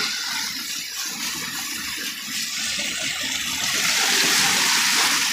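Rushing of a river in flood, a steady noise of fast-moving water that grows louder about four seconds in.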